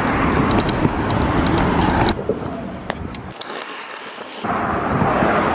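Stunt scooter wheels rolling over rough, wet asphalt: a steady gritty rumble with small ticks from bumps in the surface. It thins out about two seconds in, drops lower around three and a half seconds, then comes back full near the end.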